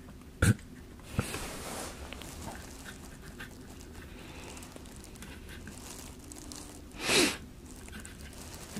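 Quiet room tone broken by a sharp click about half a second in and a fainter one just after a second, then one short breathy rush, like a sniff or exhale close to the microphone, around seven seconds in.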